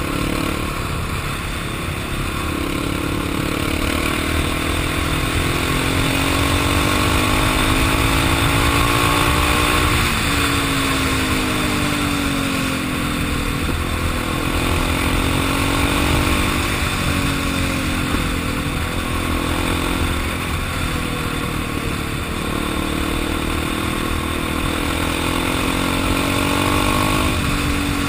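Kawasaki KFX400 quad's single-cylinder four-stroke engine running hard, its pitch climbing and then dropping sharply again and again as the rider shifts and lifts off for the bends. A steady rush of wind noise lies under it.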